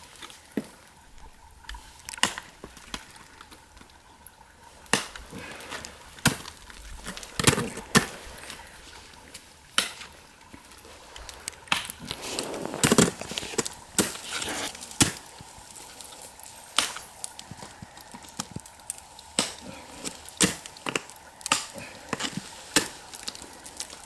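Ice axe picks and crampon points striking into waterfall ice as a climber ascends: irregular sharp strikes with ice chipping away, about one a second, with a denser run of strikes about halfway through.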